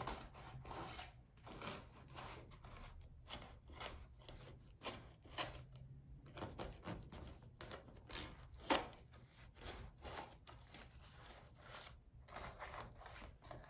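Plastic cake knife scraping around the inside walls of a metal loaf pan to free a baked banana bread: a run of faint, irregular scratches, with one sharper scrape about nine seconds in.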